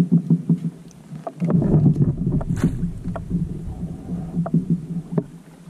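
Kayak moving on the water: water sloshing against the hull with a string of light knocks, and a low rumble setting in about a second and a half in.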